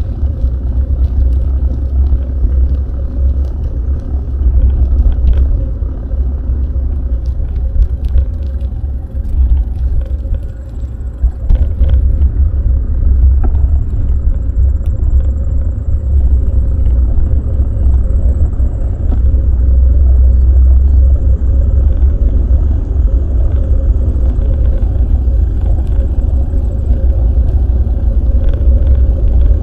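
Wind buffeting an action camera's microphone on a moving bicycle: a loud low rumble, with scattered small clicks and rattles.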